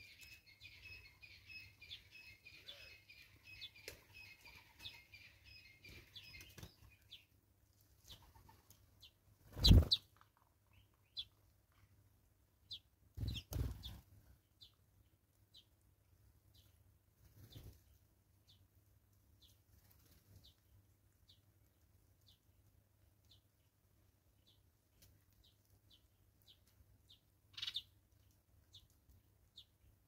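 Wing flaps of grey go-away-birds moving about a feeding slab, loudest as two thumps about ten seconds in and again a few seconds later. A bird's rapid chattering song runs for the first seven seconds, then a thin high chirp repeats about once a second.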